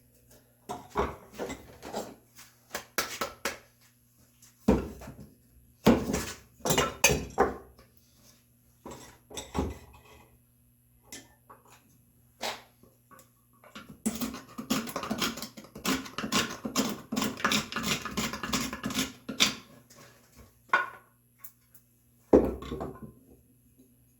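Red oak slat tenon being worked into an angled mortise: irregular wooden knocks and clicks, with a busy run of rapid clicking and rattling for several seconds in the middle.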